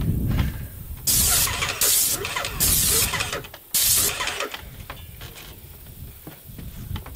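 An airless paint sprayer's gun hissing in four short bursts, each well under a second and about three-quarters of a second apart, as the trigger is pulled and the tip atomises the paint. After the fourth burst only a lower, quieter noise is left.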